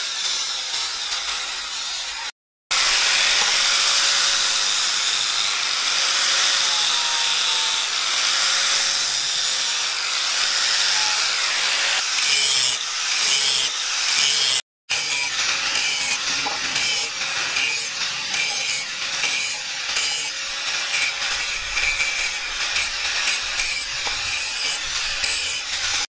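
Handheld angle grinder with an abrasive disc grinding and smoothing a forged rebar-steel knife blade: a steady hiss of abrasive on steel over the motor's wavering whine. The sound cuts out briefly twice.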